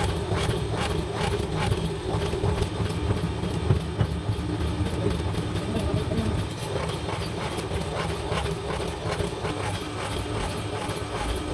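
Motor-driven spindle machine running with a steady hum as it turns an iron wok blank, with a regular metallic clacking, about two or three knocks a second, clearest in the first few seconds.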